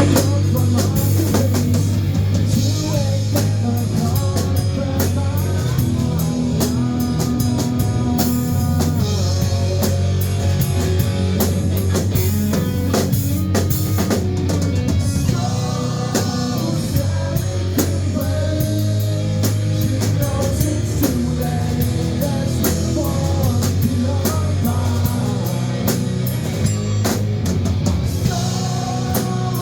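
A rock band playing live, with a drum kit, guitar and singing, at a steady loud level.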